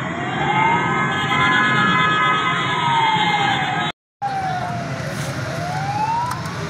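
Fire engine siren wailing, its pitch sliding slowly up and down over a few seconds, over steady street noise. A steady higher tone sounds alongside it for the first few seconds, and everything cuts out for a moment about four seconds in.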